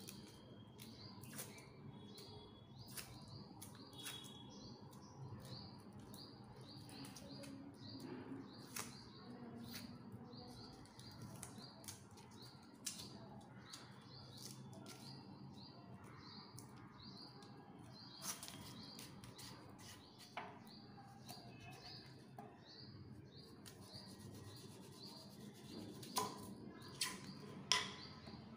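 A red onion's dry papery skin being peeled and rubbed off by hand on a wooden chopping board: faint crackling and rustling with small clicks, over a steady run of faint high chirps. Near the end come a few sharper knocks as a knife starts trimming the onion against the board.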